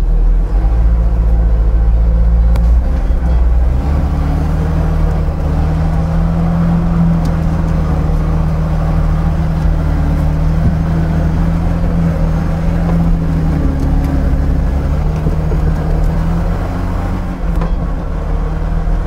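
Jeep Cherokee XJ's engine running steadily under load as the truck crawls through deep mud and water. Its note rises a little about four seconds in, holds, and eases back near the end.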